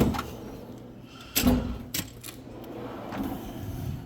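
Snap-on rolling toolbox drawers being shut and opened, with metal clunks and tools clinking inside. There is a sharp clunk at the start, a louder one about a second and a half in, and a few lighter clicks after it.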